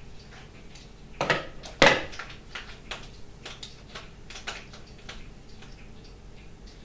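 Metal teaspoons clinking, with two sharp clinks a little after a second in, followed by a scatter of faint ticks and clicks.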